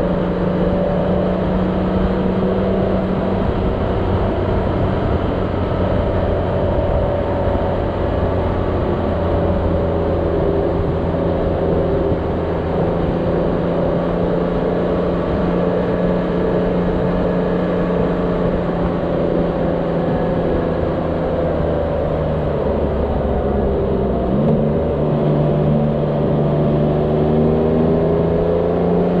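Motorcycle engine running steadily at cruising speed under the rider, heard from the handlebar camera. Near the end its pitch drops suddenly, then climbs again.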